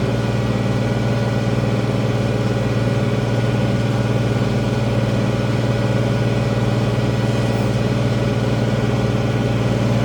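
International 1566 tractor's six-cylinder turbocharged diesel engine running steadily.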